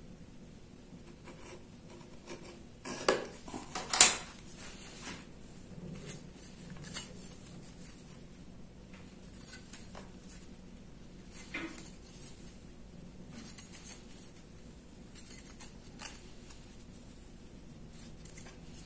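Thin aluminium sheet being scored with a hobby-knife blade and handled, then flexed along the score line: scattered scratches and light metallic clicks, with two sharper clicks about three and four seconds in.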